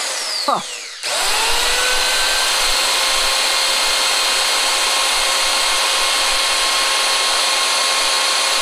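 Corded compact circular saw motor, with no blade fitted, working: a short squeeze of the trigger that winds down, then about a second in it starts again and runs up to a steady, even whine at full speed.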